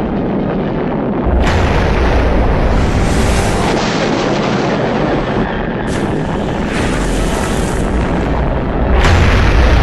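Dubbed-in sound effects of an atomic bomb blast: a continuous deep rumbling roar, struck by three sudden new blasts about a second and a half, six and nine seconds in.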